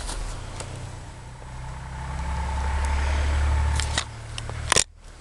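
Wind rumbling on the camera microphone, swelling in the middle, with a few light clicks and one loud sharp crack near the end.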